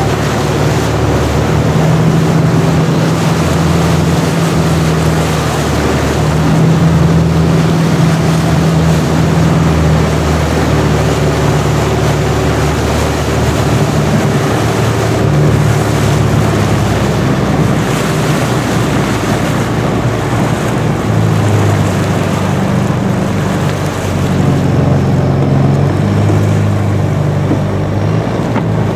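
Thai long-tail boat engine running steadily under way, heard from on board, with water rushing past the hull and wind on the microphone. The engine note drops lower about two-thirds of the way through.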